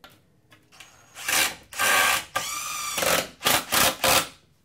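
Cordless power screwdriver driving a long wood screw through a pre-drilled hole into a wooden post. It runs in several bursts, with a steady motor whine in the middle and three short pulses near the end.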